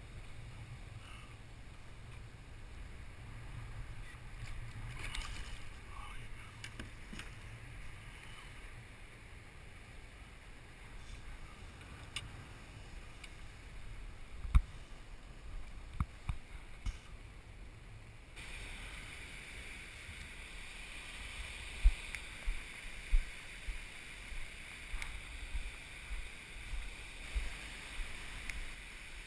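Water lapping and sloshing against a plastic sit-on-top kayak hull, with wind rumble on the mic and occasional sharp knocks on the hull. About two-thirds of the way through, the background changes suddenly to a brighter, steadier hiss.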